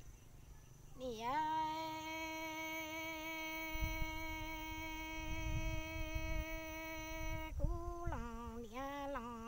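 A woman singing Hmong kwv txhiaj unaccompanied. After a quick dip in pitch about a second in, she holds one long steady note for about six seconds, then breaks into shorter wavering notes that step down in pitch.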